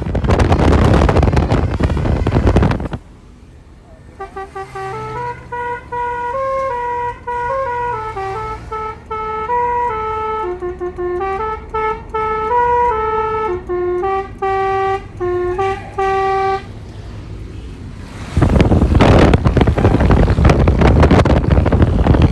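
Telolet bus horn, a multi-tone musical air horn, playing a stepped tune of short notes for about twelve seconds, starting about four seconds in. A loud rushing noise comes before and after it.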